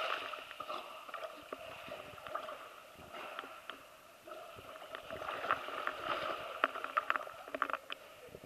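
Water sloshing and splashing as a dog paddles through a pool close to the microphone, with many small sharp splashes, busiest in the second half.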